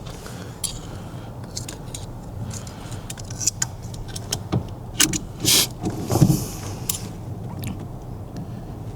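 Scattered light metallic clicks and clinks of right-angle pliers working on a car's steering column, over a low steady hum. The loudest clinks come a little past the middle.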